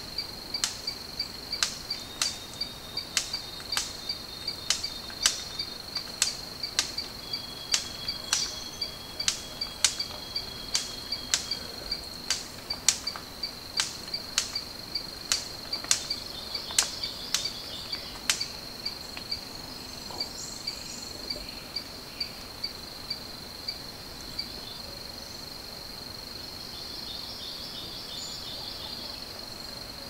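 Sharp snapping clicks, about two a second, from a male superb bird-of-paradise performing its courtship dance, stopping a little past halfway. Under them runs a steady, high, pulsing insect trill.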